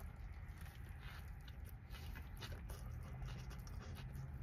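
Faint chewing of a mouthful of cheesesteak sandwich: small irregular wet mouth clicks over a low steady hum.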